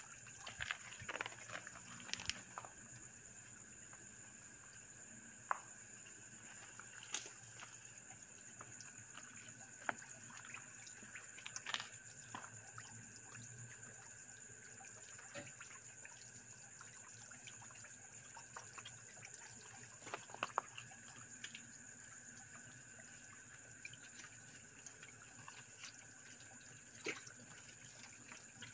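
Dumbo catfish feeding at the water surface in a tank: scattered small splashes and drip-like clicks every few seconds. They are busiest at the start, with a few more clusters later. Under them runs a steady faint high hum.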